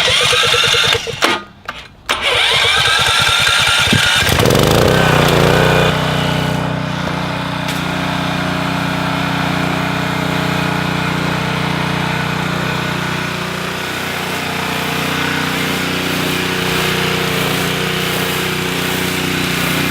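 Subaru petrol engine of a 3100 psi pressure washer being cranked, catching about four seconds in, revving up and settling into steady running.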